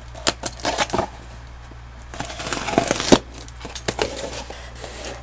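Cardboard box and packaging being handled: irregular scraping, crinkling and knocks of cardboard, with a sharp knock about three seconds in, over a steady low hum.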